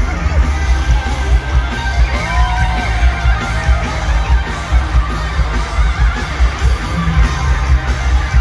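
Live pop concert music played over an arena sound system: a heavy, pulsing bass beat with electric guitar.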